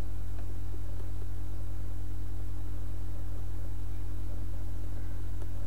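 Steady low hum with a faint hiss, unchanging throughout, with no other sound on top.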